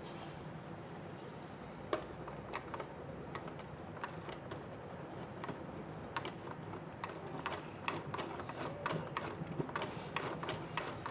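A mini sewing machine's exposed needle-bar mechanism clicking and ticking as it is worked, just after the sticking needle-bar shaft was oiled. The clicks are irregular and come faster in the last few seconds.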